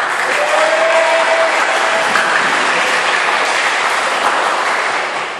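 Applause from a group of taekwondo students, starting suddenly and fading near the end.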